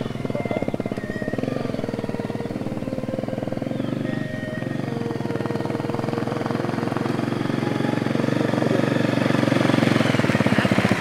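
Honda CRF250 Rally's single-cylinder four-stroke engine running steadily as the motorcycle rides off and comes up close, growing louder toward the end.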